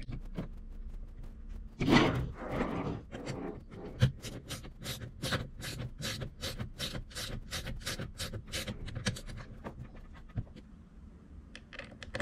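Hands handling RC buggy parts while fitting a shock absorber: a rustling clatter about two seconds in, then a run of quick light clicks, about four a second.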